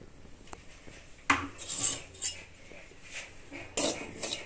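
Steel spatula scraping and stirring dry semolina around a metal kadai while it is dry-roasted, in several scrapes starting about a second in.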